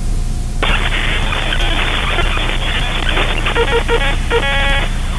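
Electronic alert noise from a mock emergency alert broadcast: a burst of harsh static starts about half a second in, then breaks up from a little past the middle into short, rapid pulses of distorted buzzing tones, over a steady low drone.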